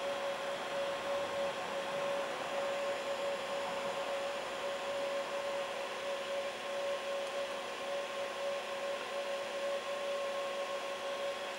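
A SeeMeCNC Orion delta 3D printer's cooling fan running, a steady whir with a constant pitched hum.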